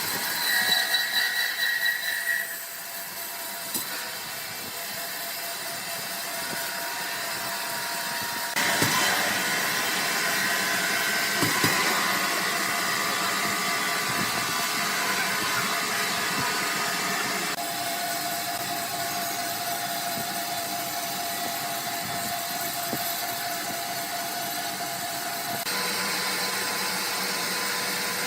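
Sawmill machinery running: steady mechanical noise with whining tones from saws and conveyors. The sound changes abruptly several times, every six to nine seconds.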